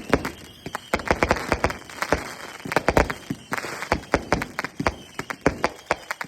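Fireworks going off: a rapid, irregular run of sharp bangs and cracks, several a second.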